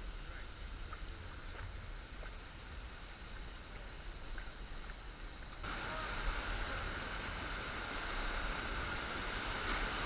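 Rushing whitewater of river rapids. The water noise is fairly low at first, then jumps suddenly louder a little past halfway and stays loud.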